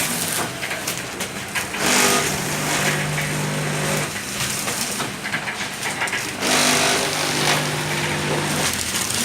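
Automatic pellet packing machine running through its cycle. Roughly every four and a half seconds there is a burst of rushing, rattling noise, followed by a steady motor hum that lasts about two seconds.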